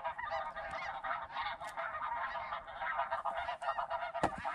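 A large flock of snow geese calling: many overlapping high, nasal honks in a continuous chorus.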